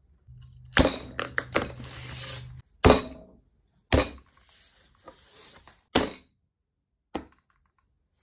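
Pencils and sketchbooks being handled and set down on a desk: a run of sharp clicks and knocks with rustling in between. The last knock comes about seven seconds in.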